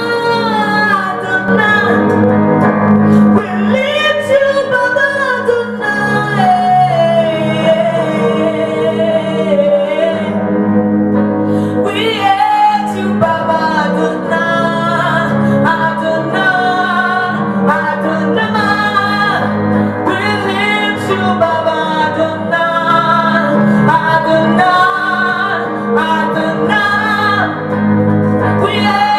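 Worship music: a sung melody, mostly a woman's voice, over sustained instrumental accompaniment.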